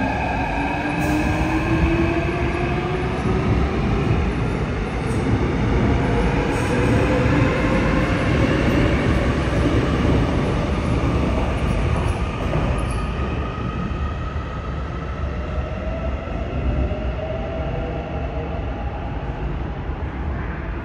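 Seoul Subway Line 7 electric train pulling out of the station: a motor whine of several tones rises in pitch as it gathers speed, over a steady rumble of wheels on the rails. The sound grows quieter after about thirteen seconds as the train leaves.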